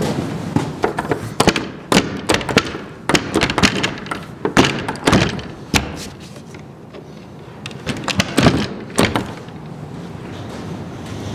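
Irregular sharp knocks and clicks at a wooden door with a metal lever handle, as the handle is worked and a hand presses against the door. A quieter stretch comes in the middle, and a last cluster of knocks comes about eight to nine seconds in.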